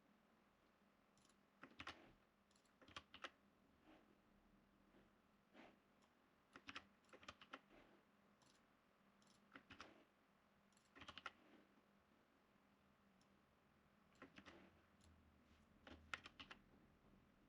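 Faint computer keyboard typing in short scattered bursts of a few keystrokes, with pauses of a second or more between them.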